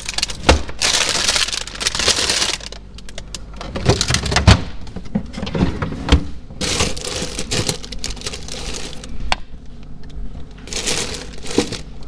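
Plastic produce bags crinkling and rustling as a hand rummages through them in a refrigerator crisper drawer, with a few sharp knocks.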